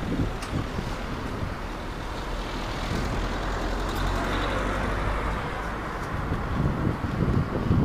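Road traffic noise mixed with wind on a handheld phone's microphone while riding a bicycle: a steady, even noise with a low hum in the middle.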